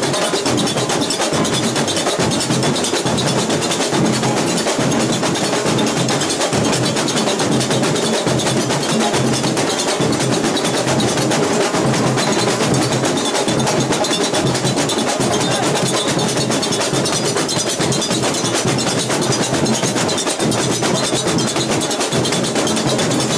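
Samba school bateria playing together: surdo bass drums, snare drums and tamborims beating a dense, unbroken samba rhythm.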